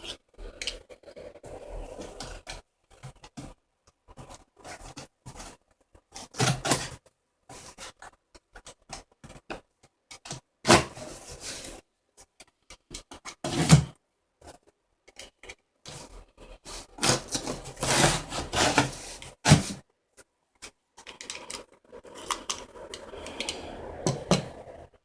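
A cardboard box being opened and its packaging handled: irregular scraping, tearing and rustling with clicks and knocks, in bursts that are loudest about a third and two thirds of the way through.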